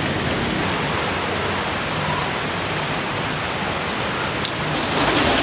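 Steady, even hiss of background noise, with a couple of faint clicks about four and a half seconds in and the hiss growing brighter and slightly louder near the end.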